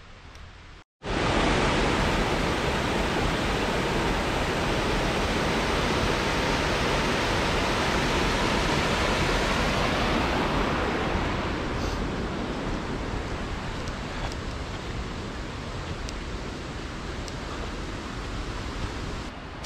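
Waterfall, a loud steady rush of falling water that starts abruptly about a second in and eases off somewhat in the second half.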